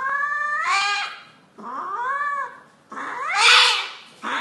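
Domestic cat yowling in long drawn-out caterwauls while held down on a vet's exam table: three rising-and-falling yowls about a second each, the third the loudest, with a fourth starting at the end.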